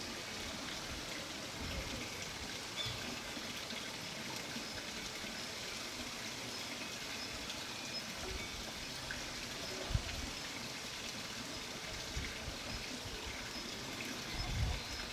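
Steady trickle of running water, with one short knock about two-thirds of the way through.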